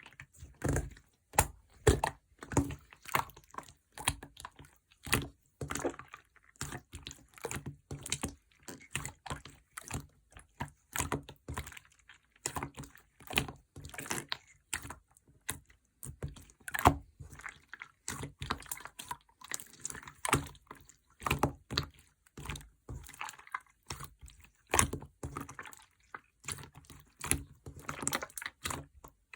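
Clear slime squished and pressed by hand, making sticky wet clicks and small air-bubble pops at an uneven pace.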